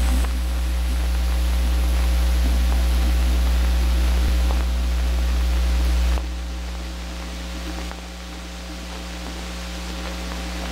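Steady low hum and hiss of an old 16mm film's optical soundtrack, with no voice on it. The hum drops in level about six seconds in.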